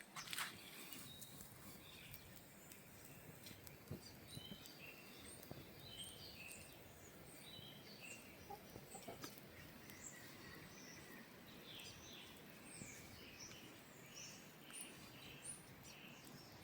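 Faint birdsong: a New Zealand tui giving short, scattered chirps and whistles over a quiet background, with a few faint clicks.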